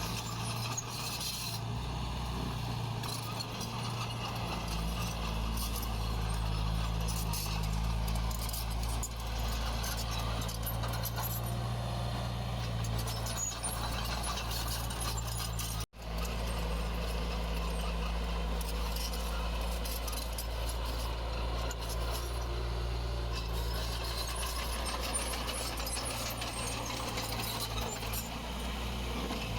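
Heavy diesel earthmoving machinery running steadily, with metallic clanking and rattling throughout. The sound drops out for an instant about halfway through.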